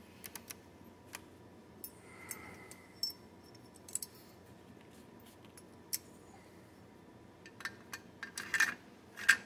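Small metal rifle parts and tools being handled on a workbench: scattered light clicks and clinks, a few seconds apart, then a quick run of louder clicks near the end.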